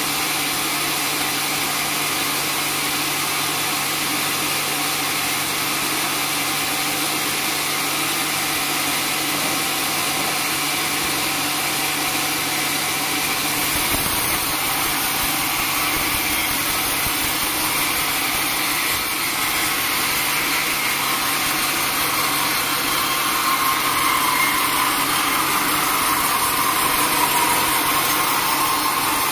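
Band sawmill running steadily with a dense, even machine noise; its character shifts about halfway through, as a low hum drops out and a higher whine comes in.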